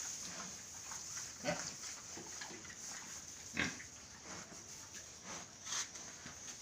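Pigs grunting now and then: a few short, faint grunts with quiet between them.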